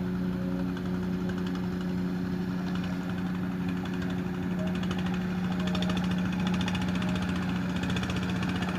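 Small wooden boat's engine running steadily at one constant pitch, labouring against a strong current.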